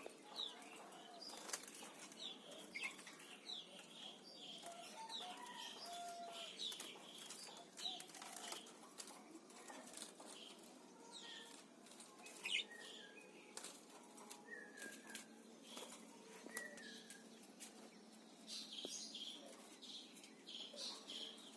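A pair of parakeets chirping softly in short, scattered calls, with frequent faint clicks from the birds moving about.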